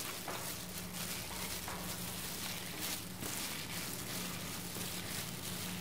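Faint, soft squelches of seasoned ground pork being kneaded by a hand in a plastic food glove in a plastic bowl, with a steady low hum underneath.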